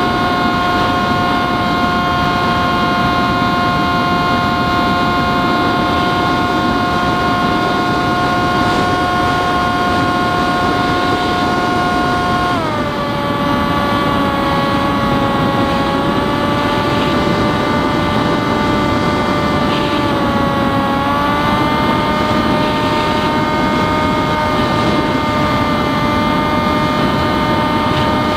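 The electric motor and propeller of an FT Explorer foam plane, whining steadily in flight as heard from its onboard camera, with wind rushing over the airframe. The whine drops suddenly in pitch about twelve seconds in as the throttle is pulled back, and shifts slightly again later.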